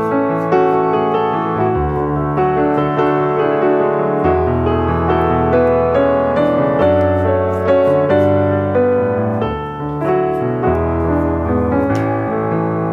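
Background piano music: a melody of quick notes over held bass notes.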